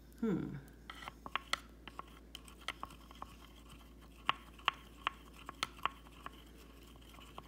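A wooden chopstick stirring flour and water in a plastic ice cube tray, making irregular light clicks and scrapes against the plastic. A short voice sound that falls in pitch comes just after the start.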